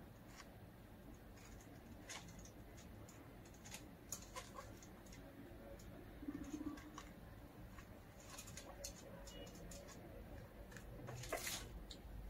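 Guinea pigs moving about on hay and cage mesh: faint scattered rustles and light clicks, with a louder rustle of hay about eleven seconds in.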